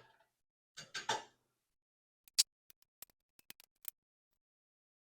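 Scattered light clicks and taps from a metal power tool rack being handled, about a dozen sharp ticks over a second and a half, with a faint murmur about a second in.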